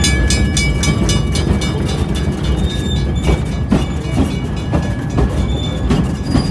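Train ride heard from on board: a steady low rumble of the rail car rolling on the track, with scattered knocks from the wheels over the rails and thin high metallic squealing in the first couple of seconds.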